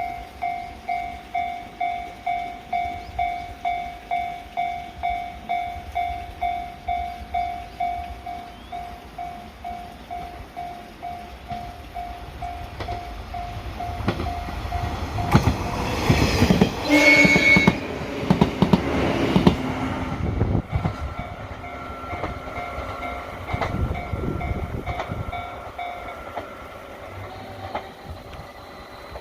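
Japanese level-crossing warning bell ringing steadily at about two strokes a second. An electric train then passes, with the rumble of wheels on rails and a short horn blast about halfway through. The crossing bell rings on more faintly once the train has gone by.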